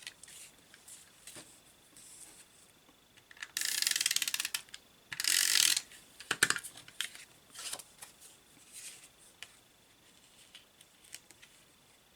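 Adhesive tape runner rolled across the back of a piece of paper: two rasping ratcheting runs, the first about a second long with rapid ticks through it and the second shorter, then a few sharp clicks and small paper-handling sounds.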